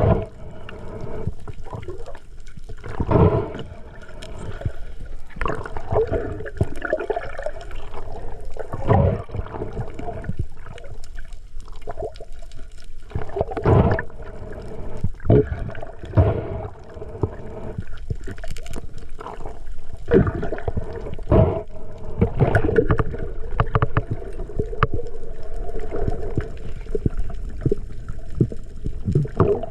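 Water sloshing and gurgling around the microphone, with irregular louder surges every second or two.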